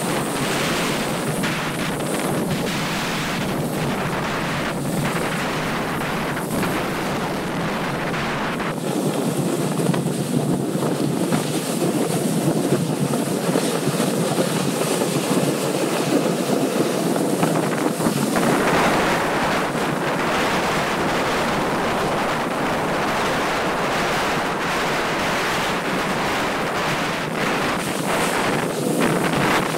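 Steady wind rushing over a camera microphone while sliding fast down a groomed ski slope, with the hiss of sliding on packed snow underneath. The rush turns fuller and lower about nine seconds in, and brighter again about halfway through.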